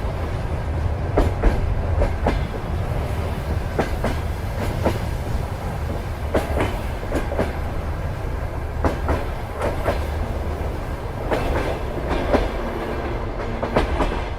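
Train wheels clattering over rail joints over a steady low rumble, the knocks coming at uneven spacing. A faint steady hum joins in near the end.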